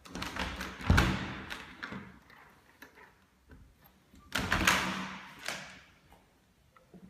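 A balcony door being handled and opened: a sharp knock about a second in, then a second longer rush of scraping noise a few seconds later.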